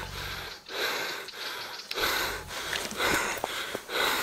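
A person panting heavily close to the microphone, a run of loud, noisy breaths about every half second.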